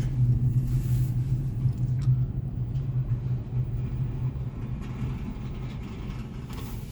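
Steady low rumble of a car's engine and tyres heard from inside the cabin while driving slowly, gradually growing quieter.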